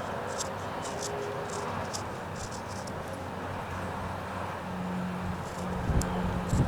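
Short, quick scraping strokes of hand tool work on a small wooden carving, over a steady background hiss. Near the end a low steady hum comes in, with a couple of knocks.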